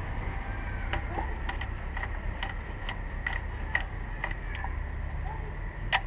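Hand ratchet wrench clicking on a spark-plug socket, a steady run of short metallic clicks about two a second, over a low steady hum.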